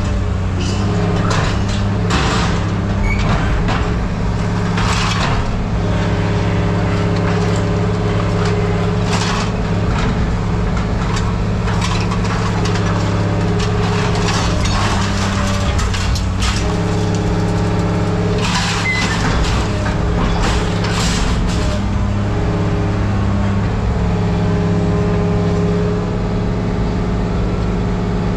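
Heavy diesel machine running steadily, with irregular clanks and hissing or squealing bursts as it works. The operator puts the sound down to one dry grease fitting, not to the machine itself.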